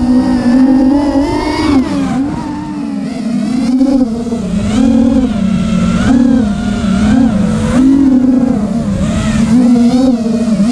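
FPV racing quadcopter's brushless motors whining loudly, the pitch rising and falling again and again as the throttle is worked in flight.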